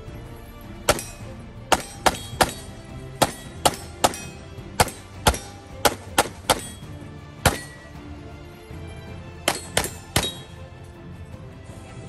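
A 9mm Canik SFx Rival competition pistol firing a fast string of about sixteen shots, many in quick pairs, with a pause of about two seconds before a final three shots. Background music plays underneath.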